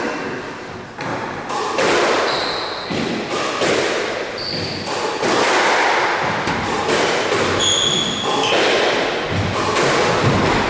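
Squash rally: the rubber ball struck by rackets and smacking off the court walls in a quick, uneven run of sharp hits, each one echoing in the enclosed court. Shoes squeak briefly on the wooden floor a few times.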